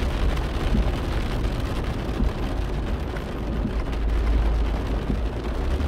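Inside a car driving on a wet street in heavy rain: a steady low rumble of engine and tyres, with the hiss of rain on the car and the wet road over it.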